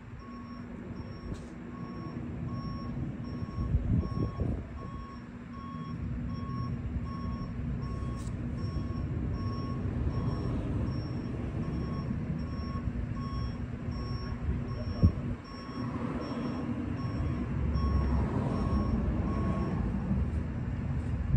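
Vehicle reversing alarm beeping steadily about twice a second over a low engine rumble, stopping shortly before the end. A single sharp knock about two-thirds of the way through.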